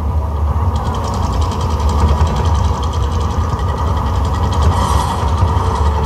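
Mirage volcano show eruption effects: a deep, continuous rumble, with a fast, even rattling hiss setting in about a second in, as fire plumes shoot up.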